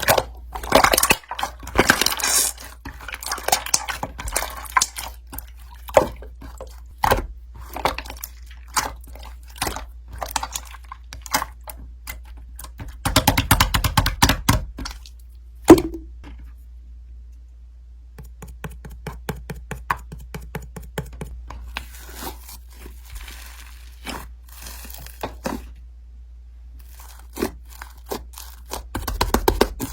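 Close handling noises: irregular clicks, taps and knocks with stretches of soft rustling, a dense flurry of clicks about halfway through and one sharp knock just after it, over a steady low hum.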